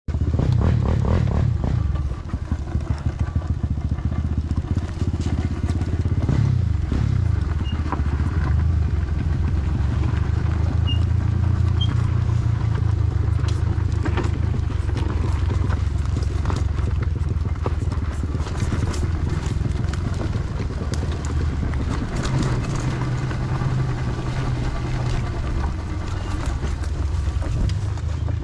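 Bajaj AX100's 100 cc two-stroke single-cylinder engine running as the motorcycle is ridden over a rough dirt trail, the revs rising and falling, with a clear drop in pitch about six seconds in. Frequent knocks and rattles from the bike over stones and ruts.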